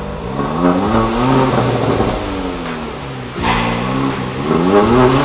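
Kia Soul GT Line's four-cylinder engine revved through its tuned exhaust, which has a vacuum-actuated cutout valve and a stock muffler: the pitch rises, falls back and rises again a few times.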